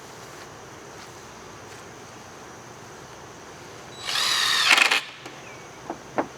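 Power drill driving a screw into the wood frame, in one burst of about a second: the motor whine rises and then sags under load before it stops, followed by a couple of light clicks.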